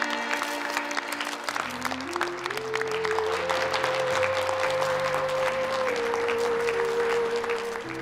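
Applause from a crowd of guests over slow string-ensemble music playing sustained chords. A lower bass part enters about one and a half seconds in.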